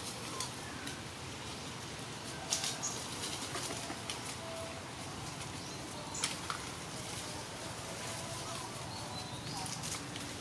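Outdoor background hiss with faint, short animal chirps and a few sharp clicks or rustles, the loudest about two and a half and six seconds in.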